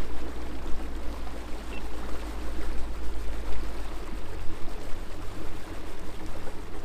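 Lake water sloshing and trickling against a bass boat's hull over a steady low rumble from the outboard idling, trimmed all the way down. The low hum thickens about four seconds in.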